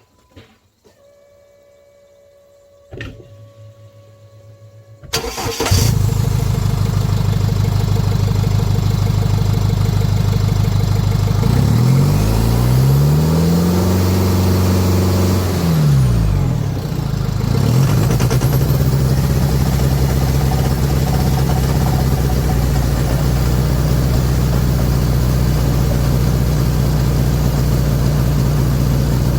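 A 2010 Jeep Wrangler JK's common-rail diesel engine starts after a click and catches about five seconds in. It idles, is revved up and back down once around the middle, then idles steadily: it now starts and runs after its injectors and fuel lines were repaired.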